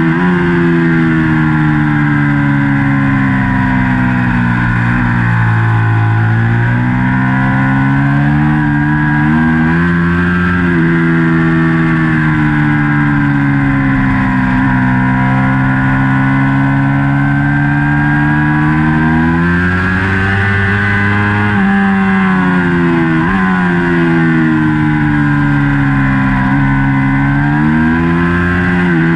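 2019 Ducati Panigale V4's 1103 cc V4 engine under race use, loud throughout. Its pitch falls as it slows and climbs again as it accelerates, several times over, with steady rushing noise over the top.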